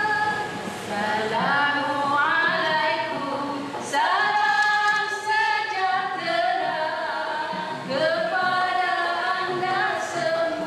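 A women's nasyid group singing a devotional song together, their voices gliding upward into long held notes several times.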